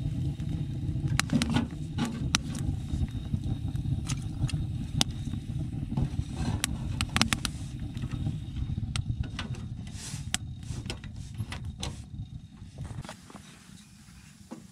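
Wood fire burning in a small tent wood stove with its door open: a steady low roar of the draft, with sharp crackles and pops from the burning wood. The roar fades near the end.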